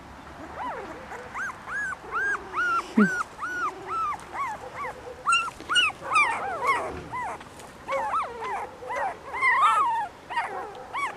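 A litter of 19-day-old puppies whimpering and crying, short high arched cries about two a second. From about halfway through, several puppies cry over each other. The crying is their fright at being out in the sun for the first time.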